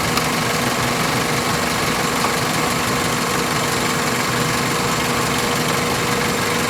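2001 Toyota Corolla's 1.8-litre four-cylinder engine idling steadily with the hood open, an even, unchanging hum.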